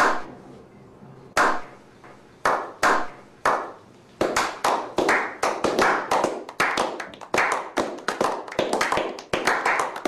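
A small group of men clapping a slow clap. A few single claps come about a second apart, then the claps speed up and build into steady applause from about four seconds in.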